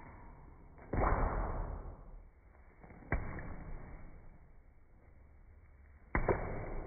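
Boxing-glove punches landing on a face, played in slow motion: three sudden low thuds, about a second in, about three seconds in and near the end, each trailing off in a long drawn-out fade. The first is the loudest.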